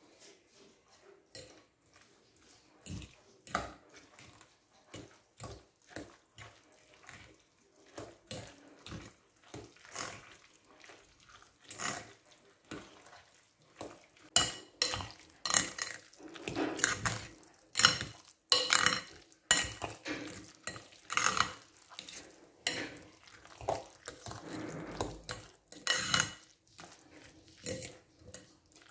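Stirring and mashing guacamole in a glass bowl: a utensil scraping and knocking against the glass, with the wet squish of the avocado mash. The strokes are soft and sparse at first, then louder and quicker, about two a second, from about halfway through.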